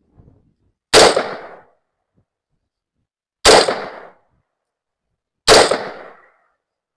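AR-15 rifle firing three single shots, spaced about two to two and a half seconds apart, each sharp report trailing off briefly.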